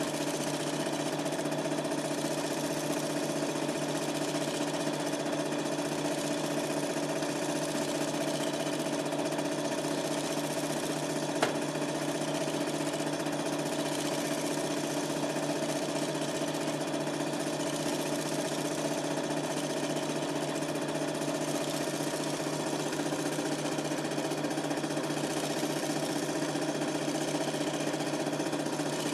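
Super 8 film projector running steadily, its motor and film transport making an even mechanical whir and clatter, with one sharp click about eleven seconds in.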